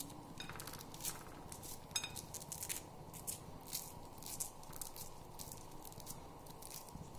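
Fresh green corn kernels being pushed off the cob with a thumb, snapping loose and dropping into a plate of kernels: a quick, irregular series of faint clicks and crackles.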